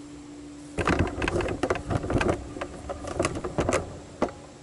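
Bursts of quick clicks and knocks from a compact cordless cut-off tool being handled, over a faint steady hum.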